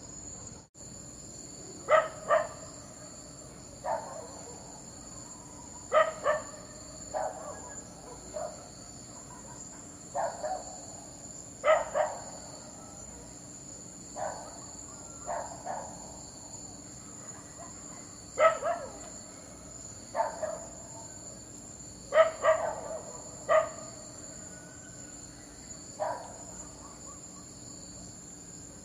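A dog barking repeatedly with short, sharp barks, singly or in quick pairs, every second or two, over the steady chirring of insects such as crickets.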